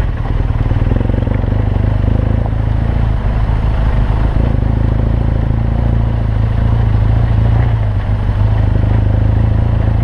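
BMW R1200GS boxer-twin motorcycle engine running steadily at low revs, its note shifting a little in pitch, with some clatter over it. The sound cuts off suddenly at the end.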